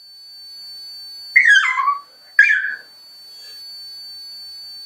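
Bully-breed puppy crying: two high-pitched whines about a second apart, each falling in pitch. A faint steady high tone runs underneath.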